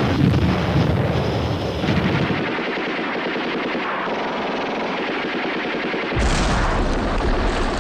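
Battle sounds: rapid, continuous machine-gun fire, which gets louder and deeper about six seconds in.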